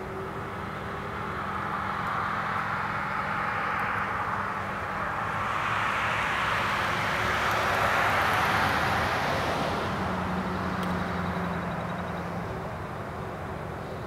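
A road vehicle passing: a steady rushing noise swells to its loudest about eight seconds in, then fades, over a low steady hum.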